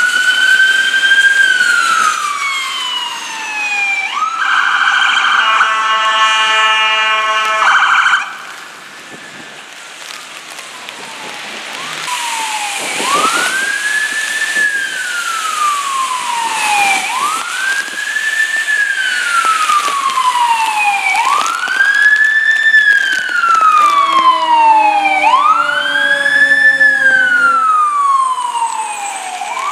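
Emergency vehicle sirens passing on a street. A siren wail falls away, then a steady horn blast of about four seconds cuts off sharply. After a quieter stretch, a siren wails in slow cycles, rising quickly and falling slowly about every four seconds, and a second, faster-sweeping siren joins near the end.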